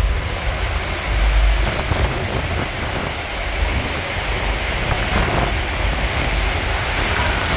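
Steady roar of the Horseshoe Falls at Niagara and the churning water below it, heard up close through heavy spray, with wind buffeting the microphone in low rumbling gusts, strongest a little after a second in.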